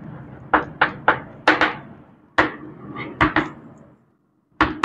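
Chalk writing on a blackboard: a string of sharp taps and short scrapes as letters are written, about two or three a second, with a brief pause about four seconds in before the strokes resume.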